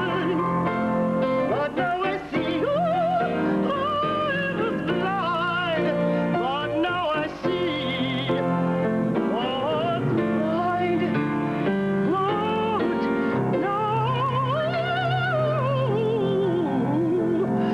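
A woman singing a solo with wide vibrato on long held notes that rise and fall, over sustained instrumental accompaniment.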